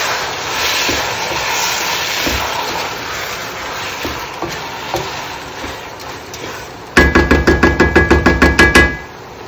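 A spatula stirring and turning rice in a pan, a steady scraping hiss, then about seven seconds in a rapid run of ringing knocks, about seven a second, lasting some two seconds.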